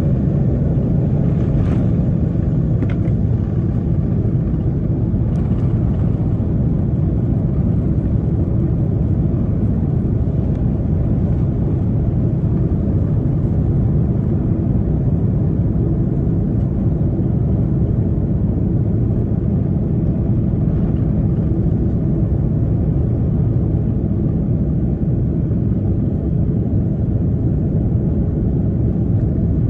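Steady, deep rumble of a jet airliner's engines, holding at a constant level, with a few faint ticks in the first few seconds.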